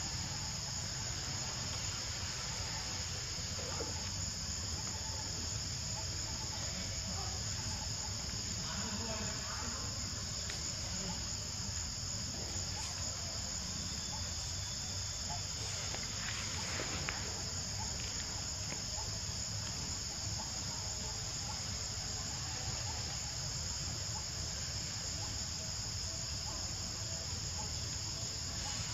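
Steady high-pitched chorus of forest insects, a continuous shrill drone that never breaks.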